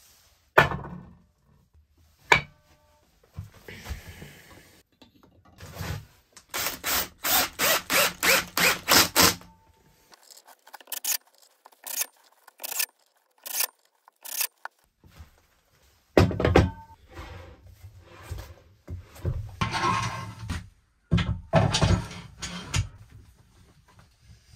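Workshop handling sounds: a string of knocks and clunks of a wooden blank and metal lathe fittings, with short bursts from a cordless drill driving screws through a steel faceplate into the wood.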